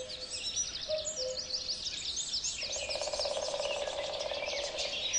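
Woodland birdsong chorus: many quick, high, downward-sweeping chirps overlapping throughout. About halfway through, a lower, fast buzzing trill joins in and holds steady.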